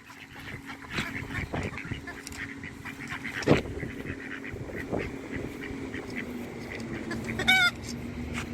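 Domestic geese and ducks calling, a scatter of short honks and quacks, the loudest about three and a half seconds in.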